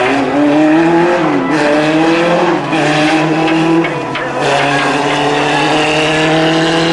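Legends race car's motorcycle engine running hard at high revs, its pitch dipping briefly about one and a half and four seconds in as the throttle is eased, then climbing again and holding steady.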